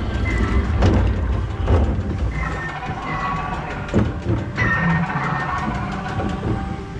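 Log flume boat moving along its water channel: a steady low rumble, with a few knocks about one, two and four seconds in as the boat bumps along.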